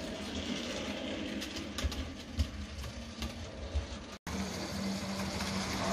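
Model railway locomotive running on the layout track: a steady electric motor hum with a few soft knocks from the wheels on the track. About four seconds in the sound breaks off for an instant and comes back as a steadier, more even hum.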